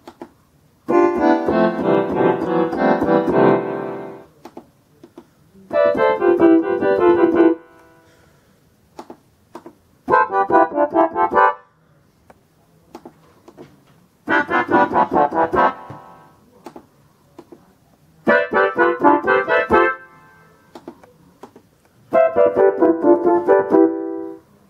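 Concertmate-1000 electronic keyboard playing its preset instrument voices one after another: six short phrases of notes, one for each voice, among them harmonica and synth reed. Small button clicks fall in the short gaps between phrases.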